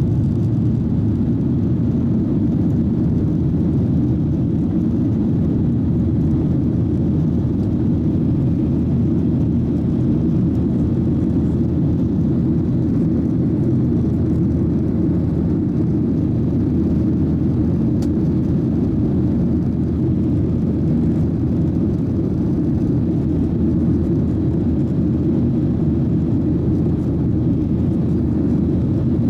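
Airliner cabin noise: a steady low rumble of jet engines and airflow heard from inside the cabin, unchanging throughout.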